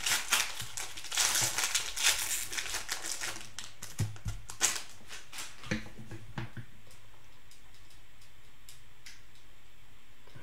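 Crinkling of a plastic cello wrapper on a pack of trading cards as it is torn open and handled, dense for about the first three seconds, then a few light knocks and clicks before it goes quiet.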